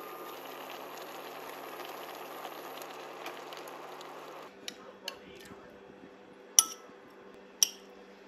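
Soup simmering in a pot with a steady bubbling hiss. About halfway through this stops and a metal ladle clinks against a glass bowl four times, the last two clinks sharp and the loudest.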